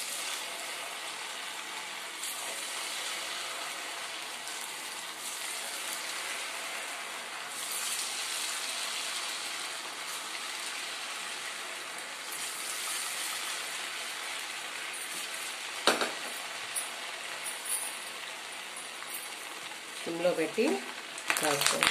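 Cornflour-coated potato fries deep-frying in hot oil in an aluminium kadai, a steady sizzling hiss. A single sharp knock about 16 seconds in.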